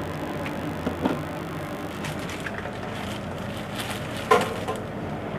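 Hot air rework gun blowing steadily while heating an NEC Tokin capacitor on a laptop motherboard to desolder it, with a few small clicks, the sharpest about four seconds in.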